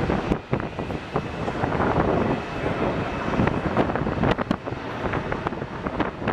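Airbus A321's jet engines running at taxi thrust as a steady rushing noise, broken by irregular crackles and thumps of wind on the microphone.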